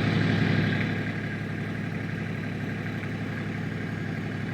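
An engine running at a steady idle, a low even hum that eases slightly about a second in.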